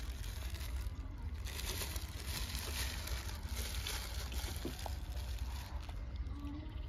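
Wind rumbling on the microphone, with a plastic bag crinkling as it is handled, busiest in the middle.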